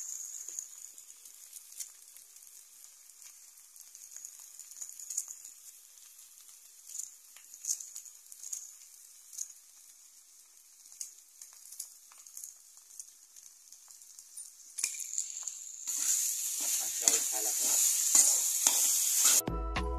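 Vegetables frying in a metal kadhai with a faint sizzle, a spatula scraping and clicking against the pan as the sabzi is stirred. Near the end the sizzling gets much louder as the mix is turned over.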